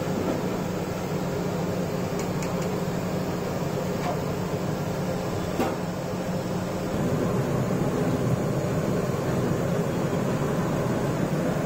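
Samosas deep-frying in a large iron kadai of hot oil: a steady sizzle over a constant low rumble, with a few faint clicks. It gets a little louder about seven seconds in.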